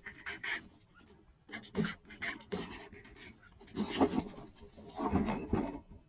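Quail scrabbling on dry soil and the pit trap's board: clumps of rough scratching and rustling scrapes, loudest about four and five seconds in.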